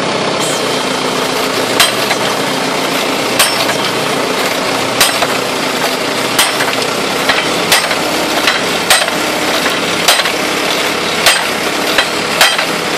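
T.600.ES hydraulic drilling rig running, its engine steady, with sharp knocks repeating through it: about one every second and a half at first, coming faster in the second half.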